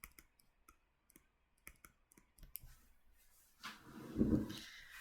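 Scattered light clicks, a few per second, then a louder rustling noise lasting about a second, starting about three and a half seconds in.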